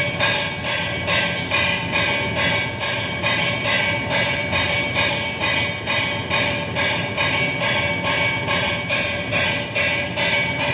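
Repetitive metallic banging in a fast, even rhythm, a few strikes a second, each strike ringing briefly.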